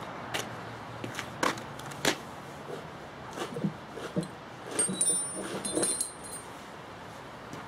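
Steel wedges and feathers (shims) clinking and jingling against each other and the bluestone slab as they are handled and set by hand, with a few scattered sharp knocks; the metallic jingling comes in a cluster about five to six seconds in.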